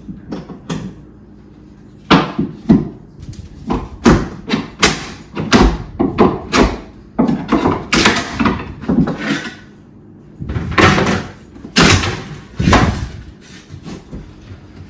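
Old flooring being pried up and torn out: an irregular run of knocks, bangs and short scraping, tearing strokes, with a pause about ten seconds in.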